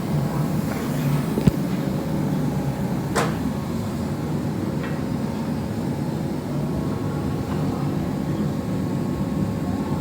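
Steady low mechanical hum of running machinery, with a couple of short metallic clinks: a faint one about a second and a half in and a sharper one about three seconds in.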